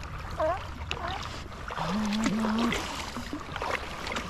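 Paddle strokes splashing and water washing past an inflatable paddleboard being paddled hard. A brief, low humming call rises over it about two seconds in.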